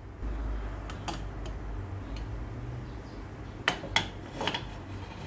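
Prestige Deluxe pressure cooker's lid being opened: metal clicks and clinks as the lid is turned and lifted off the pot, one about a second in and a cluster of several near four seconds. A low steady hum runs underneath.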